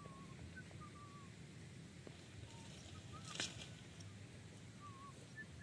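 Faint, scattered short bird chirps, each a brief thin whistle, over a steady low background hum, with one sharp click about three and a half seconds in.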